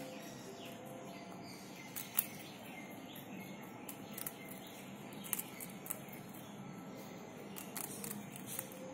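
Faint, short, high-pitched squeaks from a baby rabbit, scattered among sharp clicks.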